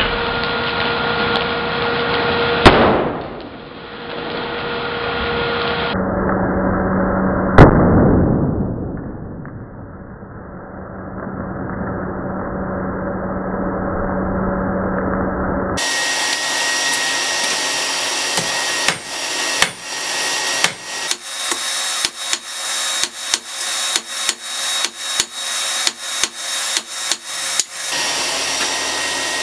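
Hand hammer striking a white-hot folded rebar bar on an anvil to set a forge weld: two single blows with long fading tails, then, after about sixteen seconds, a run of about twenty quick blows that come faster toward the end. A steady rushing noise runs underneath.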